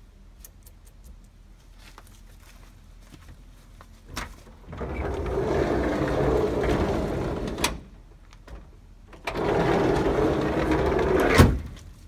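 Sliding side door of a 1977 VW Type 2 bus being worked on its freshly freed and cleaned hinges. About four seconds in the latch clicks and the door rolls open along its track, stopping with a knock. Then it rolls back and slams shut, latching with a loud bang near the end.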